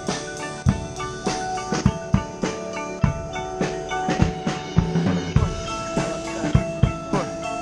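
High school marching band playing while marching: a drumline keeps a steady beat of about two strokes a second under held wind-instrument chords.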